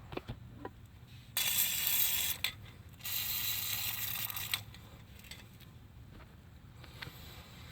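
A rusty part being scrubbed clean by hand: two spells of harsh scrubbing, about one and one and a half seconds long, with a few small clicks and taps around them.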